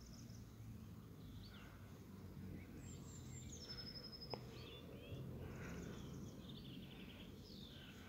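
Faint birdsong: small birds chirping and trilling, with a high whistle that slides down and then holds about three seconds in, over a low steady outdoor rumble. A single sharp click comes about four seconds in.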